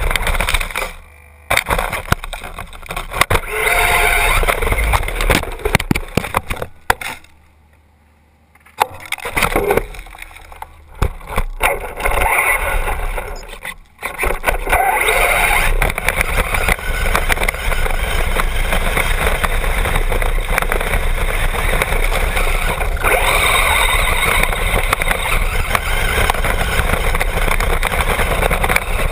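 Traxxas Bandit RC buggy with a brushless motor driving over dirt: a rushing noise of motor and tyres on the ground. It stops and starts a few times in the first half, going nearly quiet for about two seconds a quarter of the way in, then runs steadily without a break.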